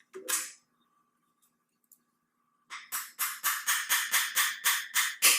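A small hammer tapping a retaining pin back into a shotgun's trigger assembly. About a dozen sharp metallic taps come at roughly four a second, starting near the middle and growing harder toward the end.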